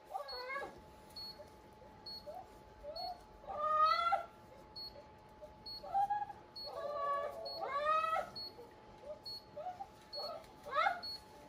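A large dog whining repeatedly in rising, drawn-out whines while its leg is held and bandaged.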